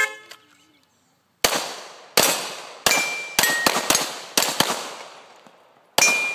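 Uneven string of about nine pistol shots, a 9 mm Glock 34 among them, fired in a head-to-head steel-target race. Struck steel plates ring briefly after some of the shots.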